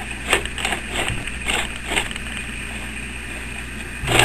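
Sewing machine under a low steady hum, with a few scattered clicks and knocks as thick sheath material is repositioned by hand under the needle. Near the end the machine starts a loud, fast burst of stitching, a bar tack punched through thick material.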